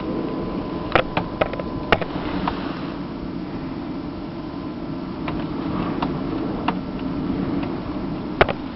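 Steady rushing noise of a snowstorm with rain, with scattered sharp ticks: a cluster in the first two seconds or so and a single louder one near the end.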